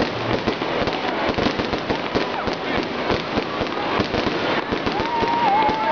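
Fireworks going off overhead: dense, rapid crackling and popping of bursting shells. A wavering tone joins about five seconds in.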